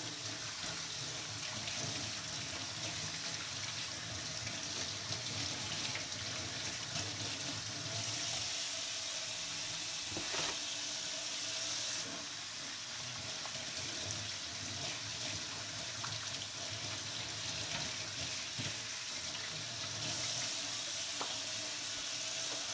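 Kitchen tap running steadily into a stainless steel sink as raw trout are rinsed under the stream, the rush of water shifting in strength now and then. A few small knocks stand out from the water.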